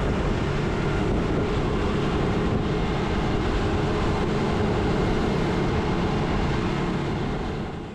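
Small fishing boat under way at speed: a steady engine drone mixed with rushing wind and water on the microphone, fading out near the end.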